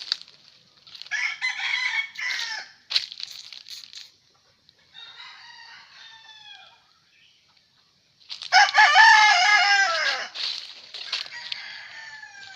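Gamefowl roosters crowing one after another, one fainter and farther off in the middle, and the loudest, long crow coming about two-thirds of the way in, dropping in pitch at its end.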